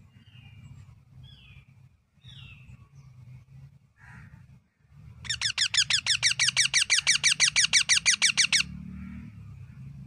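Young parakeet giving a few faint short chirps, then, about five seconds in, a loud rapid run of sharp repeated calls, about ten a second for some three seconds, which stops suddenly. A steady low hum runs underneath.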